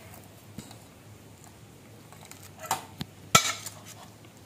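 Metal mesh ladle knocking against a stainless steel wire draining basket and pot rim as boiled noodles are lifted out to drain: a few light clinks and one sharp metallic clank a little after three seconds in.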